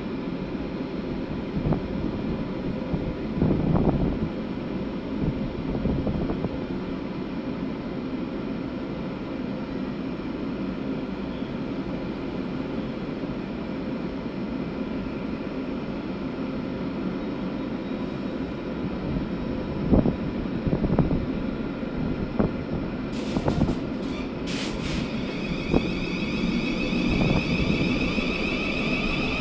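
Southeastern Class 707 electric multiple unit standing at the platform with a steady hum and a few knocks, then a cluster of clicks and, from about 25 seconds in, the high-pitched whine of its traction motors starting up as it begins to pull away.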